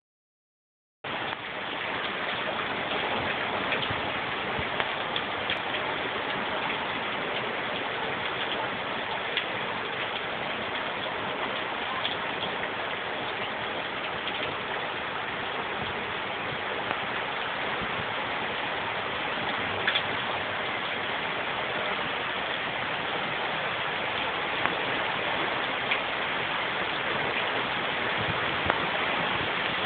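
Heavy rain pouring steadily: a dense, even hiss with scattered sharper drop ticks. It starts about a second in.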